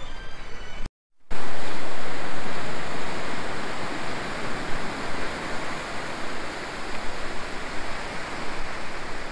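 Sea surf washing onto a beach, a loud, steady rush of noise. It sets in about a second in, after a short snatch of music cuts off.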